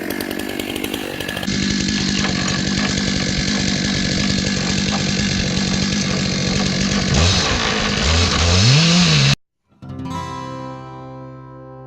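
Chainsaw running at full throttle under load in an Alaskan chainsaw mill, ripping a black walnut log into slabs; its engine pitch swings up and down near the end of the cut. The saw cuts off abruptly and acoustic guitar music starts.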